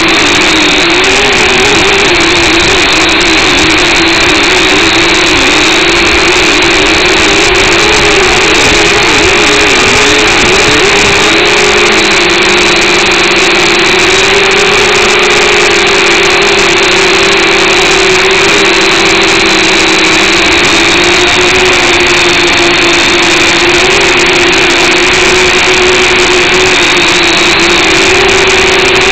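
Eachine H8C mini quadcopter's four coreless motors and propellers running, loud and close to its own onboard camera's microphone. The pitch wavers up and down for roughly the first ten seconds, then holds steadier.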